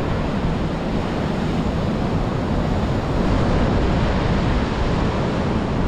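Sea surf washing onto a beach, a steady rushing noise, with wind on the microphone.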